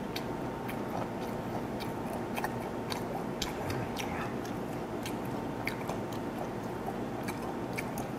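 A man chewing a mouthful of fermented skate (hongeo), closed-mouth, with irregular soft clicks and smacks of the mouth several times a second over a steady low room hum.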